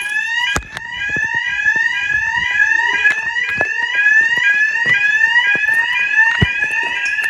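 Fire alarm sounder sounding its sweep tone, a loud rising whoop repeating about twice a second, set off for a test. A few sharp knocks sound over it.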